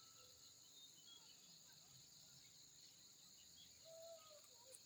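Faint, steady high-pitched insect drone, with a few faint short bird chirps over it and one brief note near the end.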